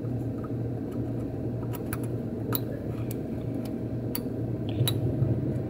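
Metal dental pick pushing on the pins of a desoldered DIP socket in a circuit board's plated through-holes, giving several sharp little clicks and snaps at irregular intervals as the pins are checked for breaking free of leftover solder. A steady low hum runs underneath.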